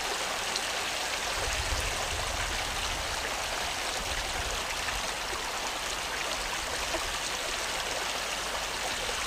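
Water pouring over a low step in a small irrigation ditch: a steady rushing and splashing, with a low rumble underneath from about a second in.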